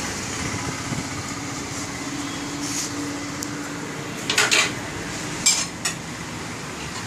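Tyre-changing machine at work on a motorcycle wheel: a steady low motor hum, then two quick clusters of metal clinks against the rim about halfway through.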